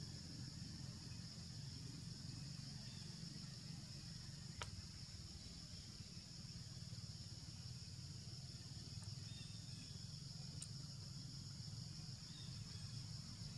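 Steady high-pitched drone of an insect chorus, with a low steady rumble underneath. A single sharp click about four and a half seconds in.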